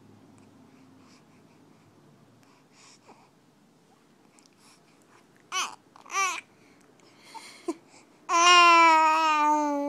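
Baby babbling: two short pitched coos about halfway through, then one long drawn-out vowel near the end, the loudest sound.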